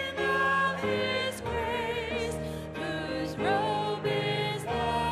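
A woman leading a congregational hymn, singing into a microphone with vibrato on the held notes, over a steady accompaniment whose chords change about once a second.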